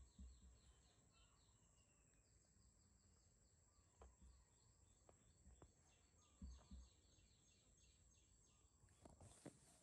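Near silence: faint outdoor ambience with a steady high-pitched hum and soft repeated chirps, broken by a few soft low thumps.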